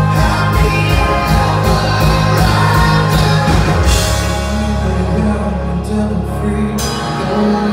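Live rock band playing through a club PA: electric guitars, bass and drums, with singing. The drums beat steadily at first, drop out about halfway to leave ringing guitar and bass chords, and come back in near the end.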